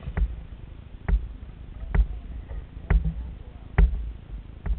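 Sharp hollow knocks on a plastic sit-on-top kayak's hull, about one a second in an even rhythm, over a low steady rumble.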